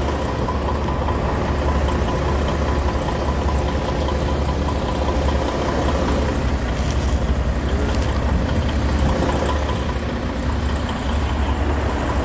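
Idling diesel semi-truck engine: a steady low drone, with a faint steady high tone above it.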